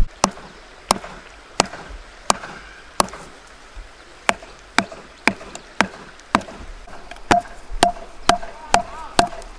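Wooden stick knocking on the top of a bamboo post, driving the post into the ground: a steady run of sharp knocks, about one every two-thirds of a second, coming a little faster toward the end.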